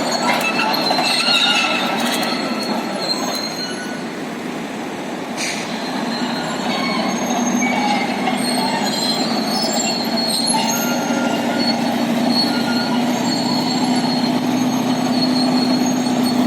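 Caterpillar D8L crawler dozer working: its steel tracks squeal and clank over a running diesel engine. A single knock comes about five seconds in, and from about halfway a steady engine note builds and holds.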